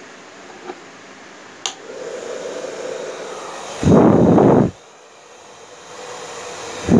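Chaoba 2800 hair dryer: two sharp clicks, then the motor starts with a steady hum. About halfway through comes a loud rush of blown air lasting under a second that cuts off suddenly. The rush builds again and is loud at the end.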